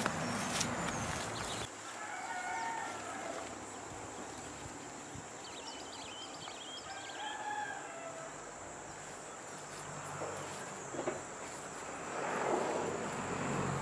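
A rooster crowing twice: a short crow about two seconds in and a longer one around six seconds in, over a faint steady high-pitched whine.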